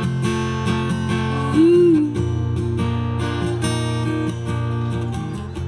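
Acoustic guitar strummed in a steady rhythm of chords, with a short wordless sung note that bends in pitch about two seconds in.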